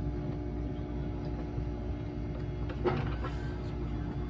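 Air-conditioning unit running with a steady low hum. A couple of light taps come about three seconds in.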